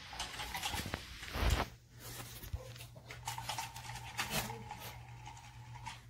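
A small battery toy motor in a remote-control toy bunny whirs steadily while a dog pokes at it, with sharp knocks as it bumps on the tile floor about one and a half seconds and about four seconds in.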